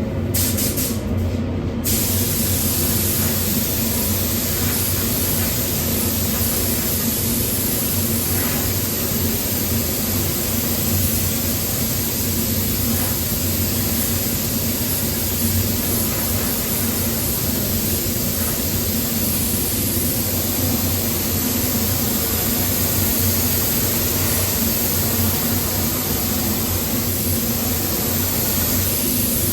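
Spray gun hissing steadily as it lays down 2K acrylic paint, with a steady low machine hum underneath.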